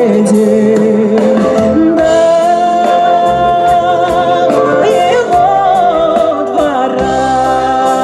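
Folk-fusion band performing a Russian folk lyric song live: singing in long, held, wavering notes over instrumental accompaniment, with light, regular percussion ticks.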